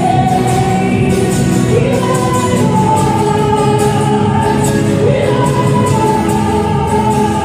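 Praise and worship music: a choir singing long held notes over a band with a steady beat.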